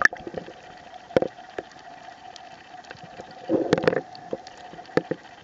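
Underwater ambience: a steady faint hum with scattered sharp clicks, and a short rush of noise about three and a half seconds in.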